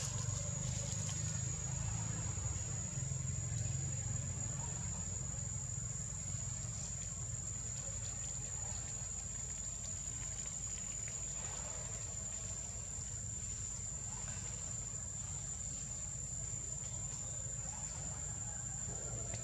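Steady forest ambience: a constant high-pitched insect drone over a low, even rumble, with no distinct calls.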